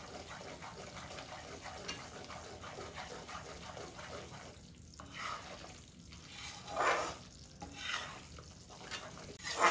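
Wheat flour roasting in ghee in a large kadhai, sizzling softly with a fine crackle as it is stirred; in the second half come a few separate, louder stirring strokes. The flour is near done, just starting to give off its roasted aroma.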